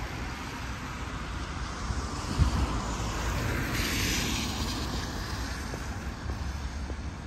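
City road traffic going by: a steady low rumble, with a short low thump about two and a half seconds in and a passing hiss about four seconds in.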